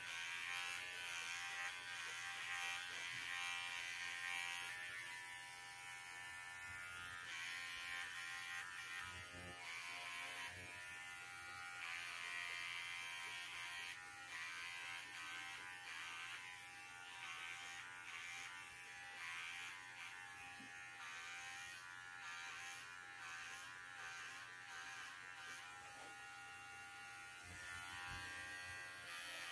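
Cordless Wahl dog clipper running with a steady electric hum, its pitch wavering slightly as the blade cuts through the dense curly coat on a standard poodle's rear leg.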